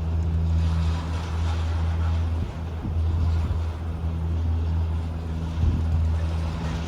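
Disney Skyliner gondola system running: a steady low mechanical hum, broken by brief rumbles about two and a half and nearly six seconds in.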